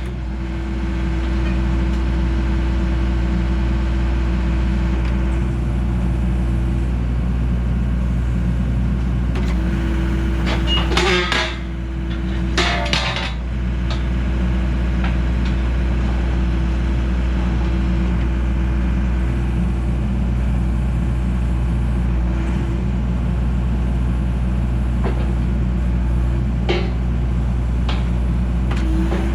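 Heavy-equipment diesel engine working a hydraulic rotating metal-cutting shear, running steadily with a whine that comes and goes. About a third of the way in come two sharp metallic cracks about two seconds apart as the shear cuts through steel, with a few lighter clanks near the end.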